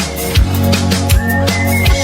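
Electronic dance music with a deep kick drum about every three quarters of a second, steady bass and a held high synth tone in the second half.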